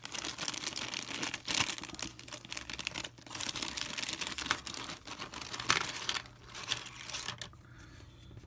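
Clear plastic bag of resin model parts crinkling and rustling as hands open it and pull parts out, in uneven spells with a short break about three seconds in, dying down near the end.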